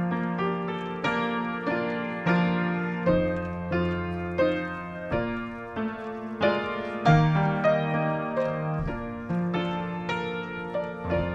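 Solo piano playing a slow, quiet hymn-like piece, notes struck about two or three times a second and left to ring.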